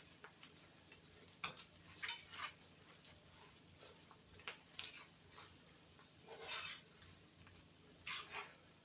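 A utensil stirring onions and flour in an oiled skillet, faint and intermittent, scraping the pan about half a dozen times, the longest stroke about six and a half seconds in. The flour is being cooked in the hot oil to take off its raw taste for the gravy.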